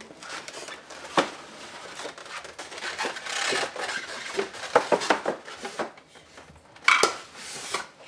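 Foam packing inserts and a cardboard box being handled during unboxing: irregular rustling and scraping with scattered knocks, a sharp one about a second in and the loudest near the end.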